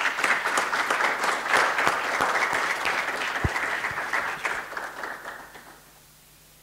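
A small audience applauding, the clapping thinning and fading out about five to six seconds in, with one dull knock partway through.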